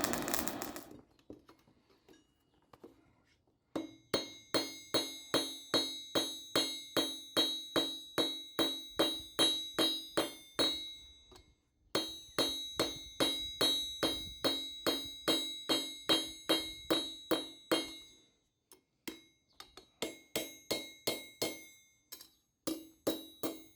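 Hand hammer striking hot iron on a steel anvil, about two to three blows a second in long runs, each blow leaving the anvil ringing.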